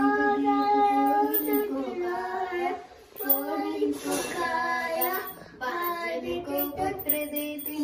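A young girl singing a Hindu devotional song, in long held notes and phrases with short pauses between them.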